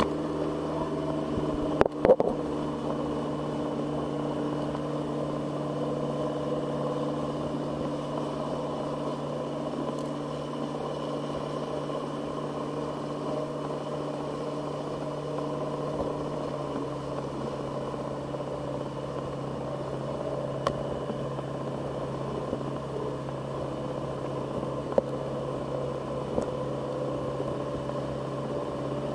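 Dive boat's engine running steadily while the boat is underway, a constant drone that keeps one pitch throughout. A couple of brief knocks about two seconds in.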